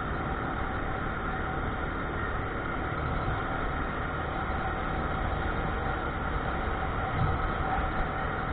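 A vehicle running steadily: a constant drone with an even hiss, and a brief low bump about seven seconds in.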